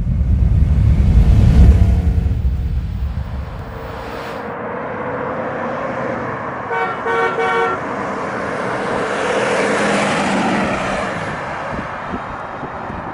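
A deep rumble swells and dies away over the first few seconds. Then a 1979 Oldsmobile Cutlass Supreme gives a few quick toots of its horn as it approaches, and drives past, its road noise rising and then fading.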